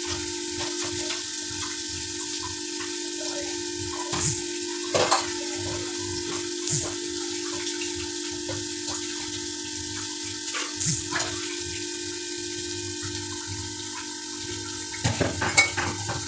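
Steady hissing kitchen noise over a low hum, with a few scattered sharp clicks and a cluster of clicks and knocks near the end.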